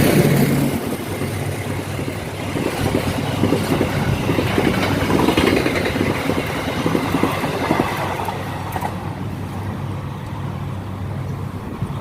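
A diesel locomotive horn blast ends about half a second in. After it comes a steady low engine rumble with uneven swells of mechanical noise.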